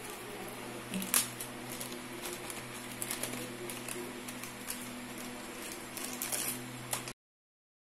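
Clear plastic packaging bag crinkling and rustling as it is handled and cables are pulled out of it, with irregular sharp crackles (the loudest about a second in) over a steady low hum. The sound cuts off suddenly about seven seconds in.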